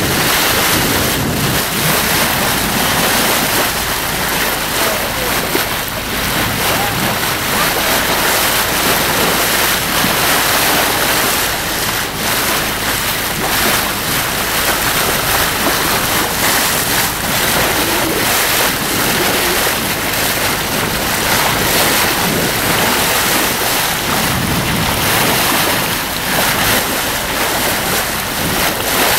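Steady rush of wind on the microphone over water splashing and hissing along a sailboat's bow and hull as it sails.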